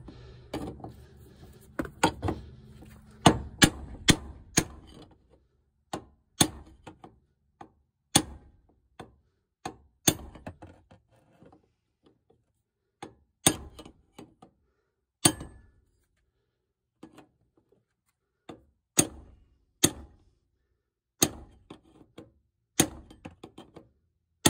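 Hammer striking a ball joint remover set against a fuel pump lock ring, a long run of sharp metallic taps driving the ring round into the tank's locking grooves. The taps come quickly for the first five seconds, then one every second or so with short pauses.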